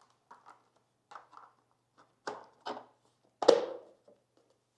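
Plastic wiring cover being set into place on a motorcycle's rear fender: a few light clicks, then three sharper knocks, the loudest about three and a half seconds in.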